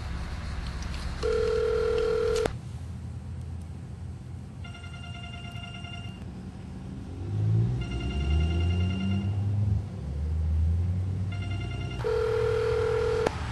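Telephone tones of a cell phone call that goes unanswered: a steady beep about a second in, several shorter ringing tones, and the same beep again near the end. A low wavering sound rises and falls under the ringing in the middle.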